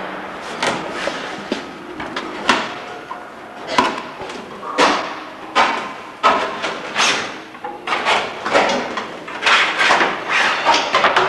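Old fabric covering being torn and peeled off an aircraft wing's ribs: a series of irregular, sharp ripping bursts, about one a second, coming faster near the end.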